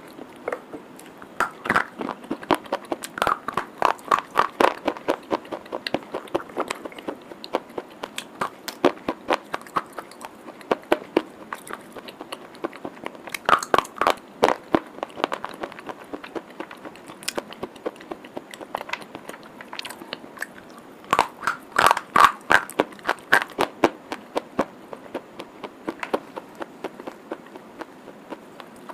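Chalk sticks being bitten and chewed: sharp, crackling crunches in irregular bursts, the densest bunches in the first few seconds, around the middle and about three quarters of the way through.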